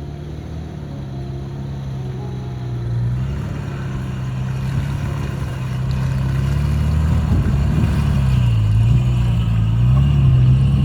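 A four-wheel-drive vehicle's engine running at low, varying revs, its pitch dipping and rising a few times in the last seconds and growing steadily louder.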